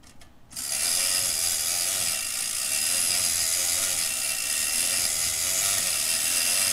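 Clockwork motor of a wind-up tin toy running steadily, a dense mechanical whirr that starts about half a second in.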